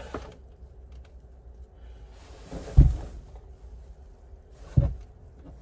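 Two dull thumps on wood, about two seconds apart, as the boards of a wooden box are handled and knocked into place.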